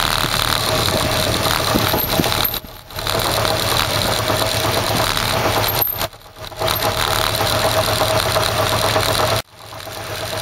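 Kawasaki Zephyr 550's air-cooled inline-four engine running while the motorcycle is ridden. The sound drops away briefly three times: near three seconds, near six seconds and, most sharply, about nine and a half seconds in, picking up again gradually.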